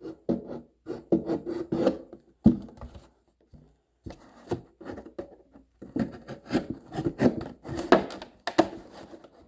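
Scissors cutting an opening in a plastic water jug: a run of irregular crunching snips and the blades scraping through the stiff plastic, with a short pause about three seconds in. The plastic is a little hard to cut.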